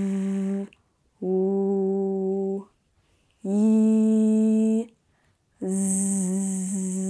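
A woman's voice holding continuous consonant sounds for phonics practice, each sustained for about one and a half to two seconds with short pauses: the end of a buzzing 'vvv', then a smooth held sound, a held 'yyy', and a buzzing 'zzz' near the end.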